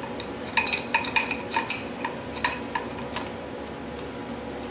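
Steel wrenches clinking against the collet nut of a CNC router spindle as the nut is tightened down on the collet and V-bit. There is a quick, irregular run of sharp metallic clinks through the first three and a half seconds, over a steady hum.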